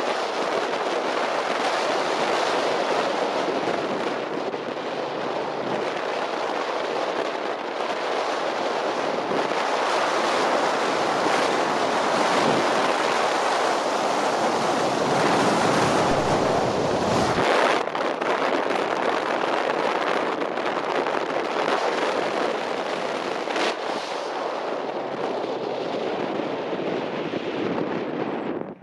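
Wind rushing over the microphone together with the noise of tyres and dirt from an off-road race truck driving fast over desert terrain: a loud, steady rush with no clear engine note.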